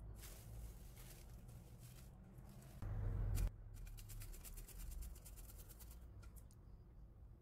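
Garlic clove grated on a small handheld garlic grater: faint, rapid rasping strokes for a couple of seconds, just after a brief, louder knock of handling about three seconds in.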